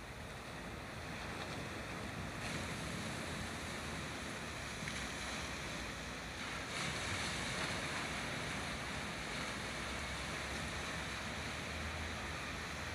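Atlantic surf washing over a rocky shore in a steady rush, swelling about two and a half seconds in and again at about seven seconds, with a low wind rumble on the microphone.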